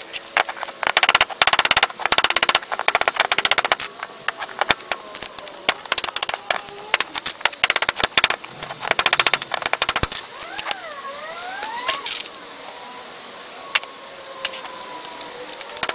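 Gritty crackling and rattling from the broken parts of a sealed lead-acid battery being pulled apart by hand and scraped through crumbled, dried-out plate debris on concrete, in quick runs of clicks that come and go.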